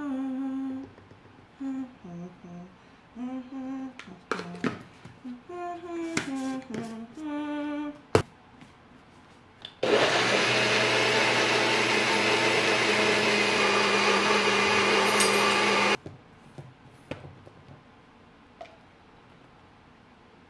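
A woman hums a tune, then a sharp click, and a NutriBullet personal blender runs steadily for about six seconds blending a kale, spinach and banana smoothie, cutting off abruptly.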